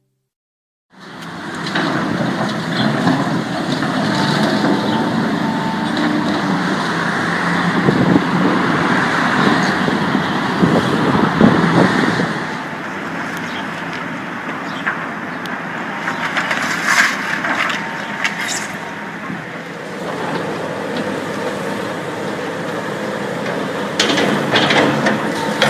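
Heavy demolition machinery running, with crunching and cracking of debris as the building is torn down; sharper cracks and knocks come about two-thirds of the way in and again near the end.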